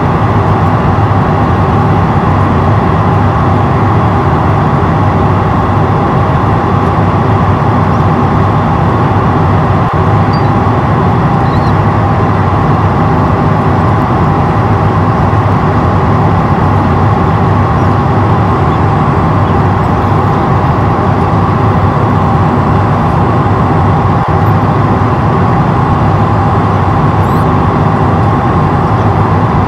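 Steady roar of engine and airflow noise inside the cabin of an Airbus A350-900 in flight, heard from a window seat over the wing, with a faint steady whine laid over it.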